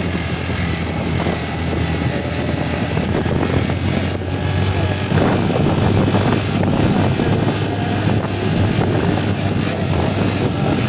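Engine of the vehicle being ridden, a steady low hum under continuous wind and road noise, rising a little about halfway through.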